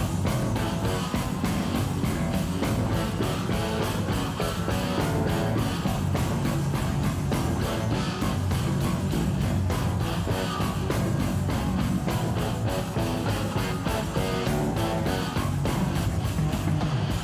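Rock band playing live without vocals: a drum kit keeps a steady, busy beat with cymbals under electric bass and guitar.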